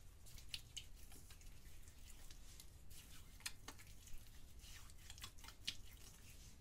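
Faint scratchy crackling of glitter-dusted hands rubbing together, with several sharp ticks scattered through it.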